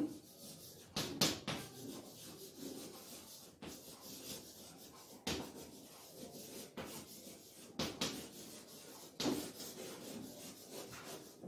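Chalk scratching and tapping on a blackboard as words are written: short rasping strokes, with a few sharper taps scattered through.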